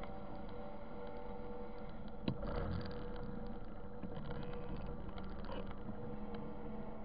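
Motorcycle engine running steadily as the bike rolls and slows, heard as a low hum with rushing wind, and a single sharp knock a little past two seconds in.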